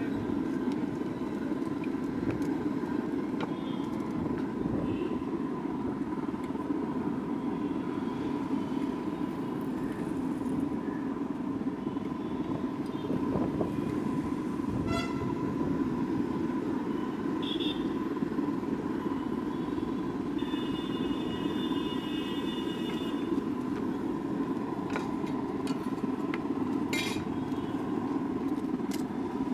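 Busy street ambience: a steady rumble of traffic and background voices, with scattered light knocks and a vehicle horn sounding for about three seconds a little past two-thirds of the way through.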